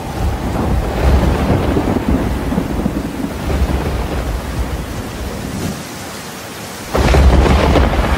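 Heavy rain with rolling thunder; the rumble eases about six seconds in and surges again about a second before the end.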